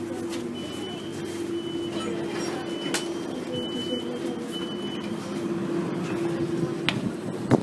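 Electric commuter train: a steady hum with a run of about five high electronic beeps over a few seconds, then a couple of sharp knocks near the end.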